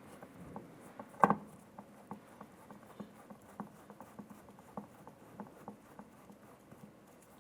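Phillips screwdriver turning out the screw inside a door pull: a louder click about a second in, then light ticks about three a second.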